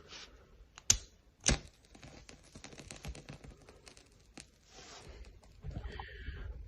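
Small metal clicks and scraping from a homemade Zippo-style petrol lighter being handled: two sharp clicks around a second in, then a run of lighter scratchy clicks, and a soft rushing sound near the end.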